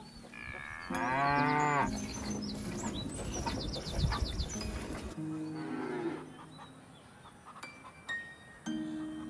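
A cow mooing: one loud call with a bending pitch, about a second in.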